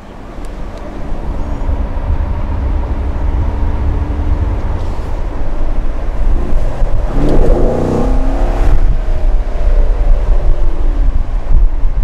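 2016 Chevrolet Corvette Stingray Z51's 6.2-litre LT1 V8 accelerating, heard from inside the cabin: a deep rumble that grows louder, with the revs climbing about seven seconds in and then falling away.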